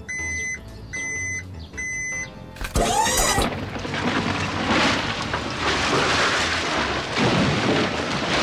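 Cartoon sound effects of a dump truck: a reversing beeper sounding a little under twice a second, then a clunk and a whoosh as the bed tips, followed by a long rushing noise of dirt pouring out of the bed.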